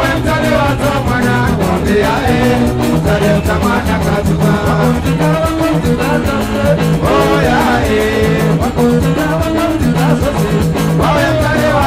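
Mgodro dance music played live, a man singing over a band with a steady, repeating bass line.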